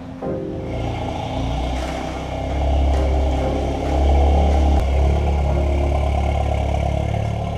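Volkswagen Golf R's turbocharged 2.0 TSI four-cylinder engine running, its low drone swelling a couple of times as it picks up.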